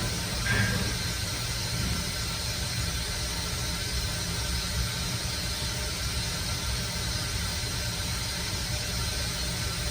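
CNC mill machining an aluminium fixture: a steady hiss over a low hum, with a brief higher-pitched squeal about half a second in.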